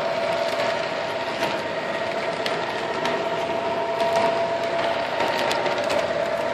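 MTH Premier SD80MAC O scale model diesel locomotive running on the track: a steady whine with a second, higher tone above it, and scattered light clicks from the wheels on the rails.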